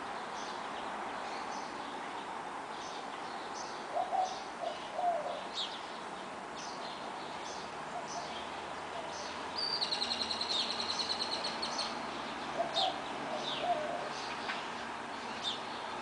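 Several songbirds chirping in short high notes over a steady hum of distant road traffic. One bird gives a rapid trill from about ten to twelve seconds in, and low short calls come twice, around four seconds in and again near thirteen seconds.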